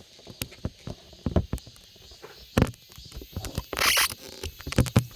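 Scattered clicks and knocks of objects being handled, with a short rustle, like paper or plastic, about four seconds in.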